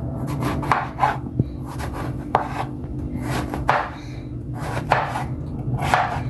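Kitchen knife slicing through raw bottle gourd on a wooden cutting board, a stroke about every second, some ending in a sharp knock of the blade on the board. A steady low hum runs underneath.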